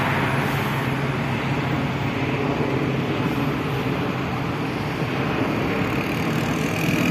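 Steady road traffic noise as vehicles pass along the street.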